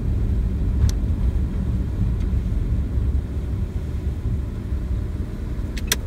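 Steady low rumble of a car driving, its engine and tyre noise heard from inside the cabin.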